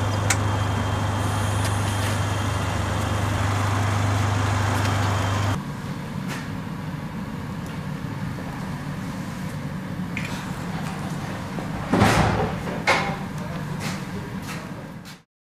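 A vehicle engine running with a steady low hum that drops away about five and a half seconds in, leaving a quieter hum. Two heavy knocks about a second apart come near the end, then all sound cuts off.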